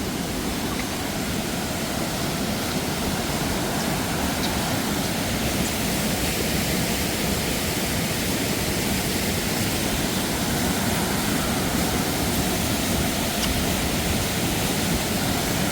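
Waterfall rushing steadily, a constant wash of falling water that grows a little louder.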